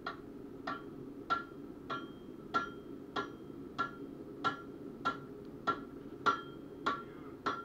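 Hand hammer forging a billhook blade over an anvil horn: about thirteen evenly paced blows, roughly one every 0.6 s, each a sharp metallic strike with a brief ring.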